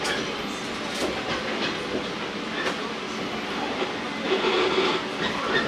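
Shinano Railway 115-series electric train running, heard from inside the carriage: a steady rumble of running noise with wheels clicking over rail joints now and then. It grows louder for a moment a little after four seconds in.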